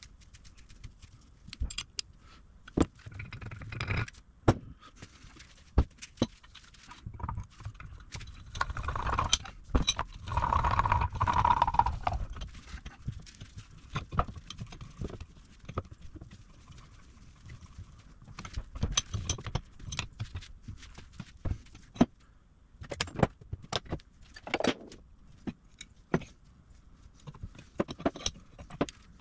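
Cast-iron bench vise parts and hand tools clinking, knocking and clattering as the vise is reassembled, with a few seconds of continuous scraping noise around ten seconds in.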